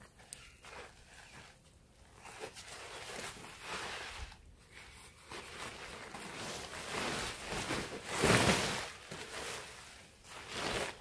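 Rustling and scraping of tent fabric and gear being handled while a tent is pitched, in irregular bursts, the loudest about eight seconds in.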